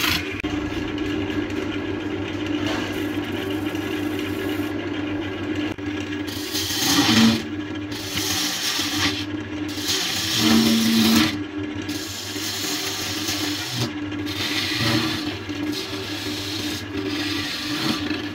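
Wood lathe running with a steady motor hum while a turning tool cuts inside a spinning wooden vessel. The cut makes a continuous hissing scrape of shavings that swells louder several times as the tool is pushed in.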